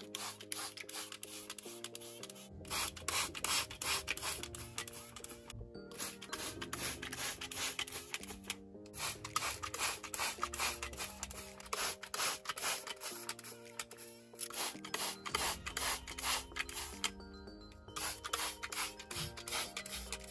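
Trigger spray bottle misting water, rapid repeated spritzes with a few short pauses, over soft background music.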